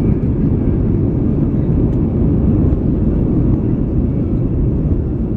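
Airliner rolling along the runway after touchdown, heard from inside the cabin: a loud, steady low rumble of the engines and the wheels on the runway.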